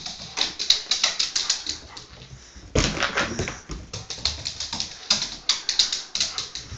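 A German Shepherd's claws clattering on a wooden floor in quick runs of clicks as she scrambles about, with a louder scuffle about three seconds in.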